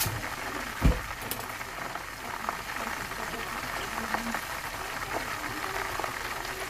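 Whole chicken frying in hot oil in a pot: a steady sizzle with scattered small crackles and pops. There is a single dull thump about a second in.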